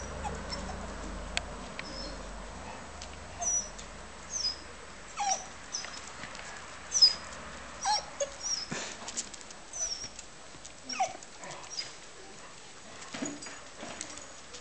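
Dogs whining and yipping in short calls, about a dozen spread through, the loudest about seven seconds in, as they greet and sniff each other.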